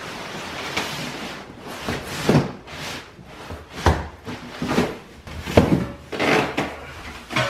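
A large cardboard carton being slid up and lifted off an air compressor, the cardboard scraping and rubbing against the packaging, with an irregular string of scrapes and dull knocks.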